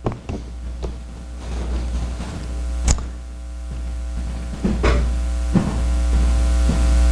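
Steady low electrical mains hum that grows louder over several seconds. A few sharp clicks or knocks sound over it, the clearest about three seconds in.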